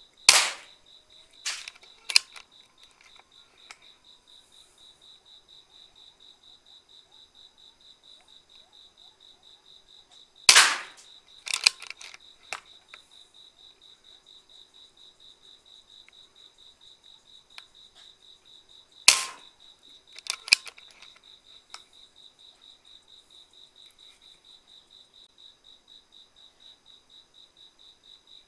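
PCP air rifle fired three times, roughly nine seconds apart, each shot a sharp crack followed about a second later by a few smaller clicks. A steady, high, pulsing chirp runs underneath.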